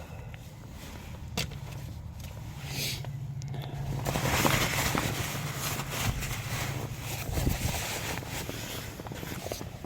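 An engine running steadily in the background, a low hum that swells with extra noise about midway, with a few sharp clicks.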